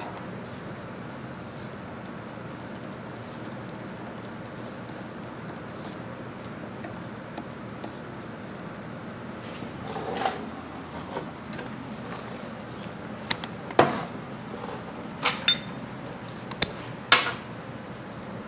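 Quiet steady shop hiss, then a short rustle about ten seconds in and several sharp metallic clicks and clinks of hand tools being handled and set down.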